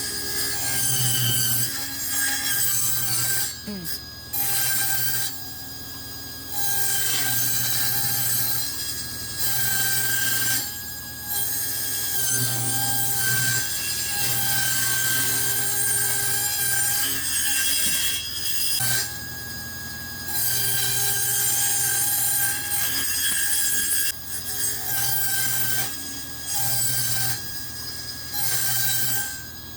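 Table saw ripping thin strips from a wooden board. The running motor and blade keep up a steady whine, and it gets louder and noisier in repeated stretches of a few seconds as the blade cuts through the wood, easing between passes.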